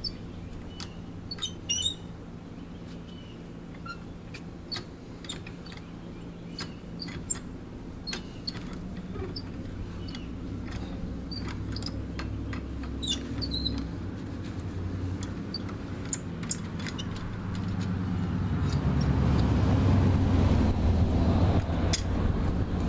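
Steel lug nuts being loosened and spun off a car's front wheel studs with a lug wrench, giving scattered light metallic clicks and clinks. A rising rush of noise takes over in the last few seconds and is the loudest sound.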